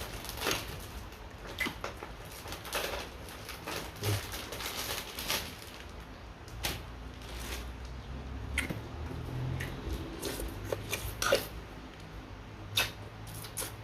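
Quiet eating sounds: chewing and scattered small clicks of utensils against dishes, over a low steady hum.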